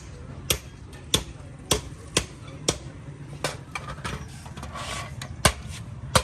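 Hammer tapping on a part under repair: about ten sharp knocks, roughly two a second and slightly uneven, with a short scraping rustle about five seconds in.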